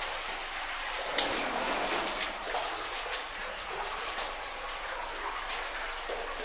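Knee-deep water in a mine adit sloshing and splashing as people wade through it, a steady wash of water with several sharper splashes from their steps.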